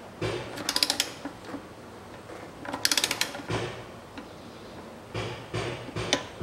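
Socket ratchet clicking in two quick runs of rapid ticks while tightening the drain plug on an automatic transmission's oil pan, with a few dull knocks of the tool between.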